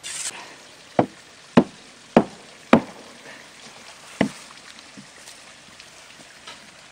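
Hand tool striking a wooden concrete form: four sharp knocks about half a second apart, then one more a moment later and a faint one after it.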